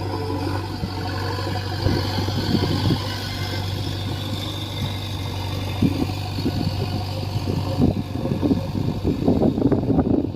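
JCB 3DX backhoe loader's diesel engine running steadily under load. A dense run of knocks and clatter comes in over the last couple of seconds.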